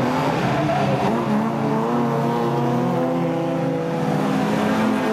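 Rallycross cars racing, their engines held at high revs: several engine notes rising and falling in the first couple of seconds, then running steady at full throttle.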